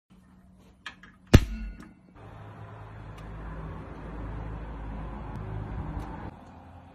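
Upright stainless steak broiler being switched on: a light click, then a loud sharp snap as it lights. A steady rushing noise with a low hum follows for about four seconds and stops abruptly near the end.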